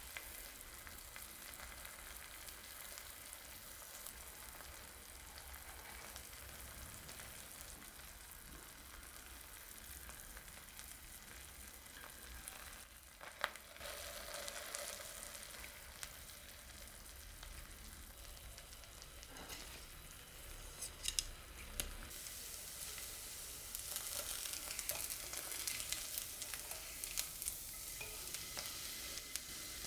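Food sizzling in a frying pan: a steady hiss, with a few sharp clicks and knocks from utensils against the pan, growing louder after about 23 seconds.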